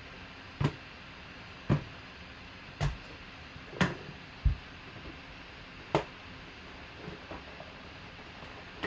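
Scattered sharp clicks and knocks, roughly one a second with a deeper thump about halfway through, from a boxed autographed hockey puck and its packaging being handled on a table as it is opened.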